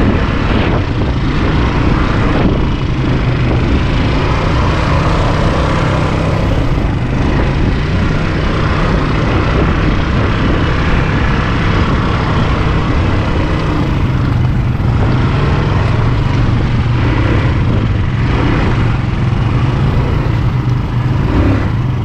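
ATV engine running steadily under way, a constant low engine drone with rough noise over it.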